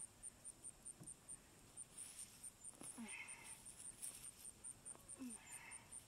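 Faint, steady high-pitched chirping of an insect, about four chirps a second, with a few soft scuffs of gloved hands digging through loose soil.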